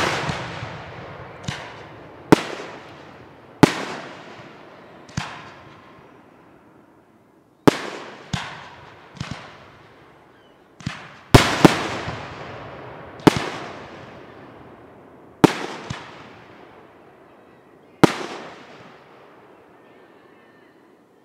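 Aerial firework shells bursting, about fifteen sharp bangs at irregular intervals, each followed by a long rolling echo that fades over a second or two.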